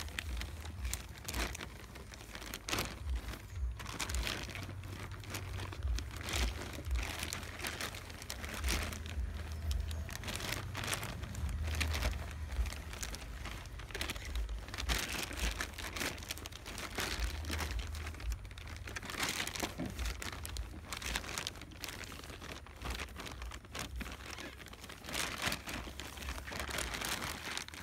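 Polythene bag crinkling and boiled paddy straw rustling as hands pack the straw tightly into the bag, with irregular crackles throughout over a low rumble.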